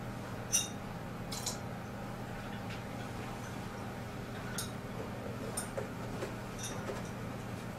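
Glass beakers being handled while oil is added: a few light clicks and clinks of glass, the sharpest about half a second in, and small drips of liquid later on, over a steady low hum.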